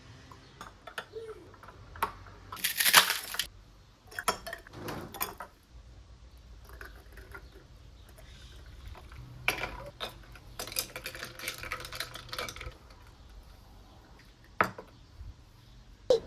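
Objects being handled: scattered clinks and taps, with a loud rustling clatter about three seconds in and a longer run of rustling and clicking in the second half.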